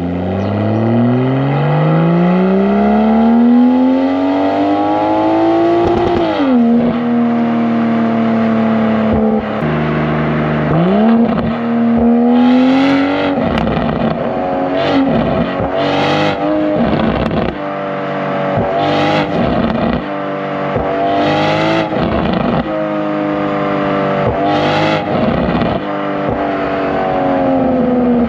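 BMW M240i's B58 turbocharged inline-six through a Valvetronic Designs valved sport exhaust, heard close to the tailpipes while driving. The revs climb and drop at an upshift about six seconds in, hold steady, then rise and fall repeatedly, with several short sharp bursts over the later revs.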